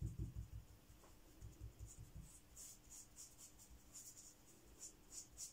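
Damp sponge dabbing paint onto paper through a paper stencil on a tabletop: soft dull taps, about five a second, in two short runs over the first two seconds, then faint quick scratchy dabs, about three a second.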